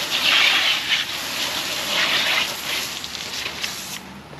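Water from a hose sprayer hitting a fish-cleaning table, a loud hissing spray that comes in surges, swelling at the start and again about two seconds in before easing off near the end.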